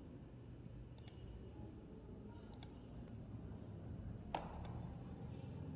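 Computer mouse clicking a few times, the loudest click about four seconds in, over a faint low room hum.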